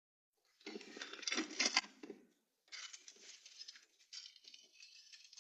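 Close rustling and crinkling handling noise with a few sharp clicks, starting about half a second in after dead silence, loudest for the first couple of seconds, then softer and broken.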